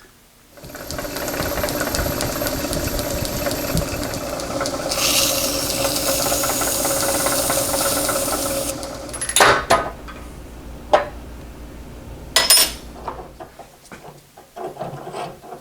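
Metal lathe starting up and running steadily while taking a light turning cut on a roller's bearing fit. A hiss from the cutting tool is heard for a few seconds. The machine stops about nine seconds in, followed by a few sharp clicks and knocks.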